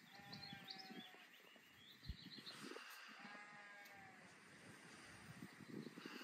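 A young lamb bleating twice, high-pitched calls about two seconds apart.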